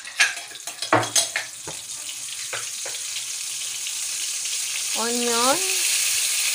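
Butter sizzling as it melts in a hot wok, the sizzle growing steadily louder. There are a few sharp clicks in the first three seconds.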